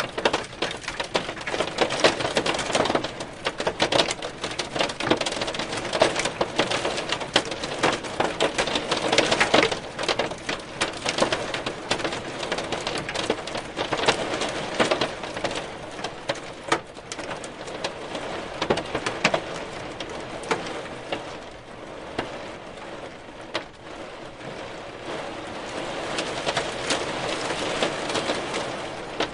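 Hail falling: a dense clatter of hailstones striking, heaviest for the first ten seconds or so, thinning out in the middle and picking up again near the end.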